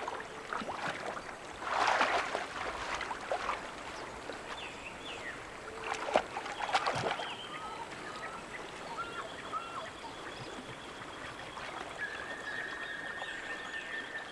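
Water splashing and swishing as giant river otters swim at the surface, with louder splashes about two seconds in and again around six to seven seconds. Faint high chirps sound over the water.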